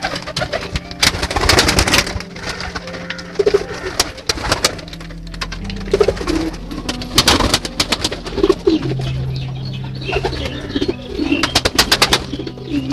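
Domestic pigeons cooing in a crowded loft, with repeated bursts of wing flapping and flutter as birds take off and land around the camera.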